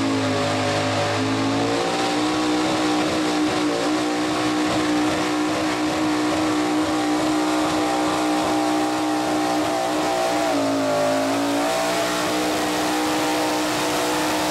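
Modified gas pulling truck's engine running at high revs under full load, dragging a weight-transfer sled. The pitch holds steady, sags briefly about ten seconds in, then climbs back.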